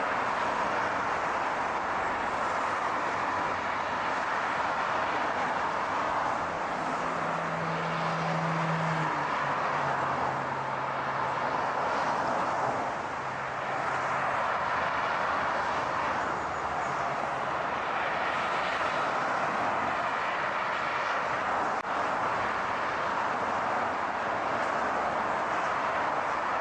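Steady rushing noise of a car on the road, with a low engine hum that comes in about six seconds in, drops in pitch near ten seconds and fades out after about seventeen seconds.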